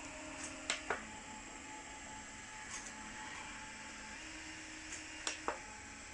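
Two sharp double clicks, about four and a half seconds apart, over a faint steady hum whose pitch shifts slightly a couple of times.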